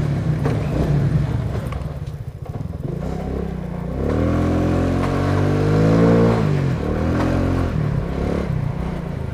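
Honda C50 moped's small single-cylinder engine running as it is ridden. It revs up about four seconds in, then eases off about two seconds later.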